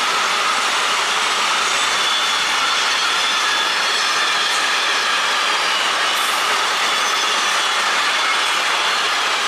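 Container freight train rolling past, the steady noise of its wagons' wheels running on the rails.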